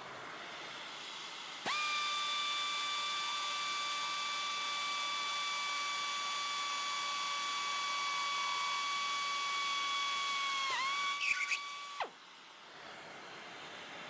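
Pneumatic drill running with a steady high-pitched whine for about ten seconds while drilling an aluminum panel through a vacuum dust shroud. Its pitch dips briefly near the end, a few sharp clicks follow, and then it cuts off. A HEPA vacuum's steady hiss runs underneath before and after the drill.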